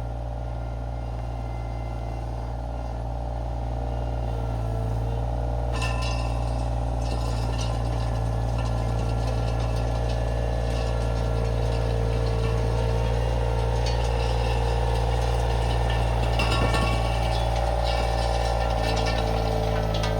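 Iron Rhino IR1200 mini skid steer running steadily under load, with a hydraulic whine. About six seconds in, the rattling and clinking of gravel and stones starts as its power rake attachment churns up the compacted driveway surface.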